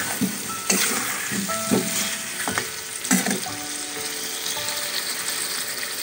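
Boiled whole potatoes and green peas sizzling as they fry in spice paste in a metal pot, stirred with a wooden spatula that knocks against the pot about four times.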